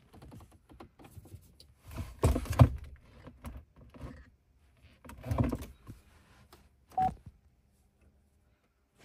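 A gloved hand pressing buttons and the touchscreen on a pickup's dashboard: soft knocks and rustles, two of them louder. A single short electronic beep from the controls comes about seven seconds in.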